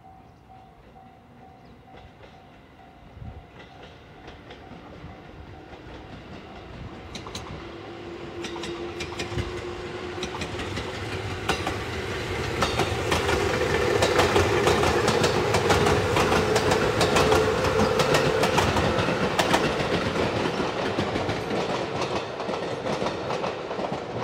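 JR 213 series electric train pulling away and passing close by. Its motor hum rises steadily in pitch as it gathers speed, and its wheels click over the rail joints. It grows loud as it passes, then fades as it moves off.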